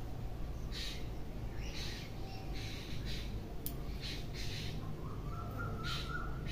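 Birds giving about six short, harsh, rasping calls at uneven intervals, over a steady low rumble.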